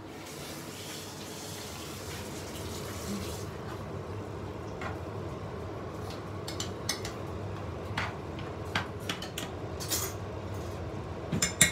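Kitchen tap running for about three and a half seconds, then a spoon knocking and scraping against a frying pan as minced meat and peppers are stirred, with a quick cluster of sharp clicks near the end.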